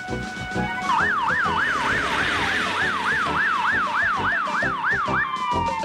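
Fire engine siren wailing, rising and falling about three times a second. It starts about a second in and settles into one falling tone near the end.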